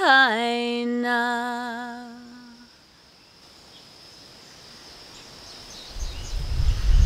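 A woman's voice singing a Hawaiian chant: the last note of a phrase glides down, is held and fades out over about two and a half seconds. Then a faint steady high buzz like insects with a few small chirps, and a low rumble building in the last second.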